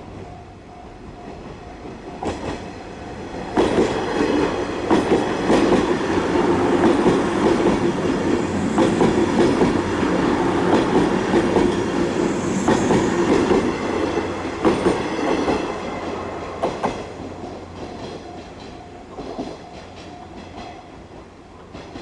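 A JR West 103 series electric train passes over the level crossing, its wheels clacking over the rail joints on a steady rumble. It builds about two seconds in, is loudest through the middle and fades after about sixteen seconds. The crossing's warning bell clangs in a steady repeating rhythm before the train gets loud and again as it fades.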